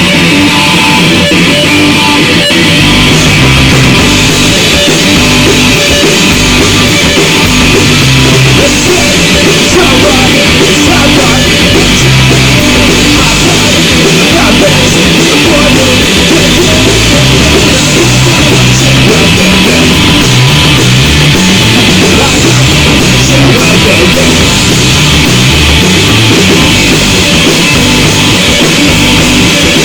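Live rock band playing a loud song, with distorted electric guitar over bass and drums.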